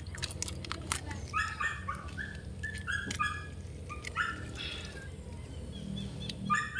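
A small animal's short, high-pitched calls, repeated rapidly in a run of about a dozen, with a few sharp wet clicks from handling the fish.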